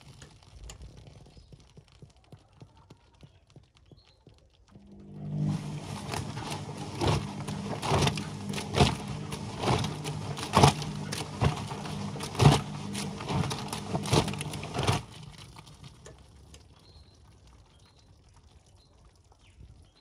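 Whirlpool front-loading washing machine running with its door open: the drum rests with water trickling in, then about five seconds in the motor hums and the drum tumbles wet, soapy laundry with repeated splashing slaps for about ten seconds before it stops again.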